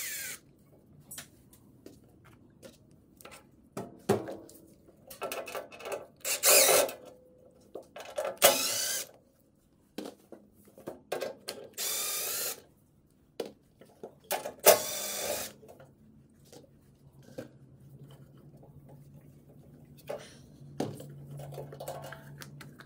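Milwaukee cordless impact driver run in four short bursts, each under a second, backing out the Phillips screws that hold the sheet-metal control cover on a mini excavator. Scattered clicks and knocks of the bit, screws and metal parts come between the bursts.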